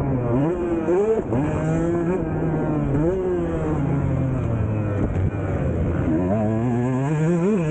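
Husqvarna TC 125 two-stroke dirt bike engine under hard riding, the throttle opening and closing so that its pitch climbs and drops over and over, with a sharp climb about a second in and another near the end.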